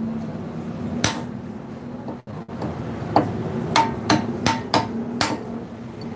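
Light hammer taps on the steel wheel hub of an Isuzu truck's rear axle, each strike with a short metallic ring. One blow comes about a second in, then six more in quick succession in the second half. The taps are meant to loosen the part so it can be pulled off.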